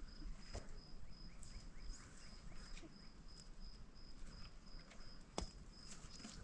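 Cricket chirping steadily, about three short high chirps a second, with scattered light clicks and one sharper knock about five seconds in.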